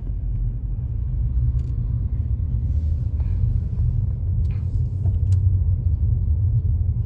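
Low, steady road rumble of a moving car heard from inside the cabin, with a few faint ticks.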